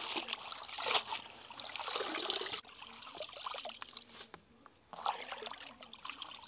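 Hands swishing herbs and greens in a plastic basin of water, with sloshing splashes and water trickling off the leaves as handfuls are lifted out. The splashing comes in several separate surges with quieter dripping between.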